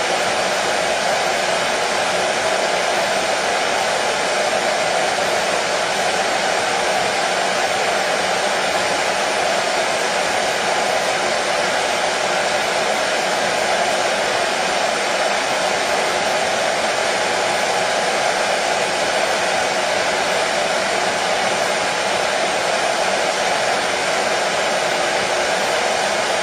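Electric hair dryer running steadily, a continuous even rushing noise with no change in pitch or level.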